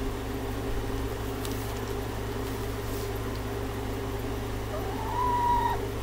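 An Easter Egger hen gives one drawn-out call about five seconds in, rising and then holding its pitch for about a second, over a steady low room hum.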